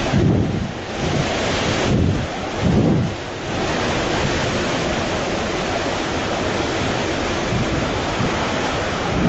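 Hurricane wind buffeting the microphone in heavy gusts over a rushing roar of wind and surf, settling into a steadier rush after about three seconds.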